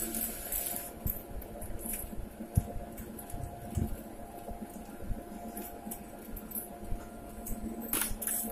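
Ball bearing superfinishing machine running with a steady hum, with scattered light clicks and ticks from the parts and mechanism.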